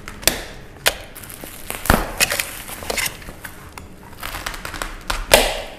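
Plastic packaging wrap crinkling and crackling as hands pull it off a parcel, in a string of sharp rustles, the loudest near the end.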